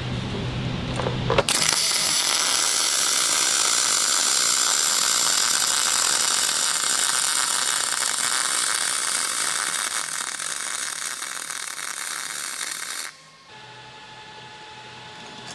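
MIG welding arc from a Tweco spool gun laying aluminum wire into a T-joint. It strikes suddenly about a second and a half in, runs as a steady hiss for about eleven seconds, and stops abruptly near the end.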